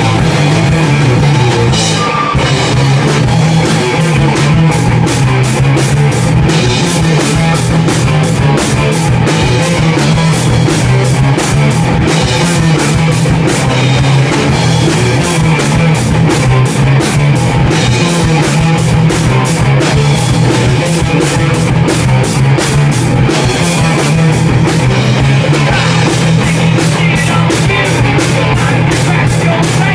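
A rock band playing loud in a small room: electric guitar, electric bass and drum kit, with cymbals struck in an even, steady beat.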